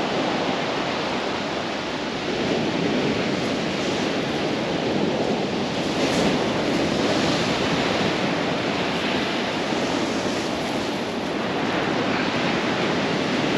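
Surf breaking and washing up and back over a shingle beach: a steady rushing that swells every few seconds as waves come in, in a big swell.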